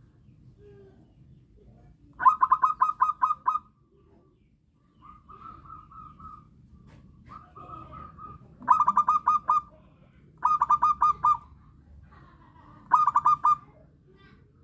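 Zebra dove (perkutut) calling: four loud bursts of rapid staccato cooing notes, with softer, smoother coos between them.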